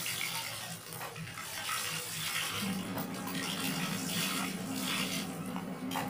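Laundry being washed by hand in a basin: wet clothes scrubbed and sloshed in the water in uneven swishes. A steady low hum runs underneath and grows stronger a little over two seconds in.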